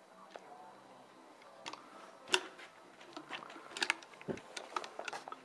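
Metal clicks and clinks of a horse's full-mouth dental speculum being fitted and adjusted on the head, with one louder clank a little over two seconds in and a quick run of clicks near the end.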